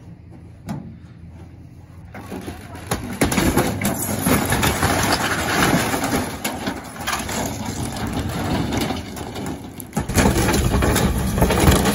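Pickup truck engine revving under load as it tows a mobile home's wall off, with sheet-metal siding and wood framing tearing, scraping and crashing. Fairly quiet for the first two seconds, then the din builds and stays loud, with a brief dip about ten seconds in.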